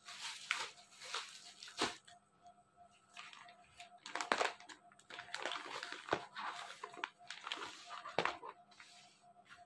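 Clear plastic packaging bag rustling and crinkling as it is opened and handled and the folded fabric inside is pulled out, with a few sharp clicks along the way.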